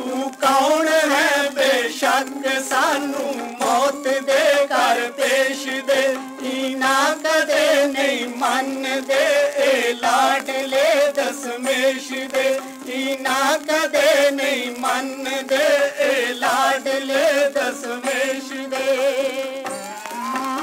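Punjabi devotional song played from an Odeon long-playing record on a record player. Sung high voices with wavering pitch ride over a steady drone, with surface crackle and a thin, old-record sound that lacks bass.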